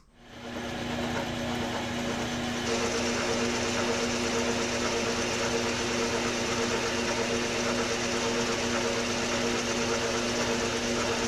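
Metal lathe running, its spinning chuck turning down a mild steel rod: a steady motor and gear hum with a hiss over it, which gets louder and hissier about three seconds in.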